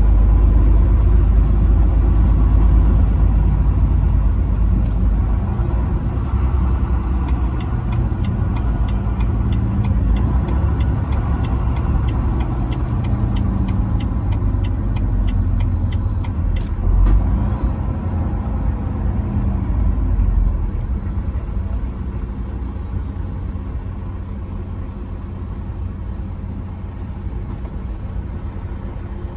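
Truck on the move: a steady low rumble of engine and road noise. A regular ticking runs for several seconds in the middle, and the rumble gets somewhat quieter over the last few seconds.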